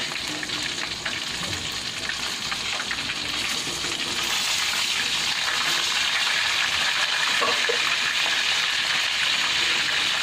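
Chicken thighs sizzling as they fry in hot oil in a wok, a steady hissing that grows a little louder about four seconds in.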